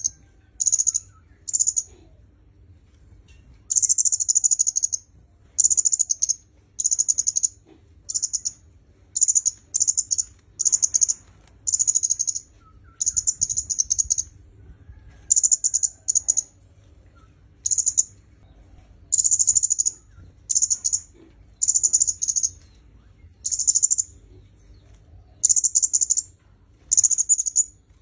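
A flowerpecker (kemade kepala merah) calling a short, very high, rapid trill over and over, about one phrase a second, with brief pauses between.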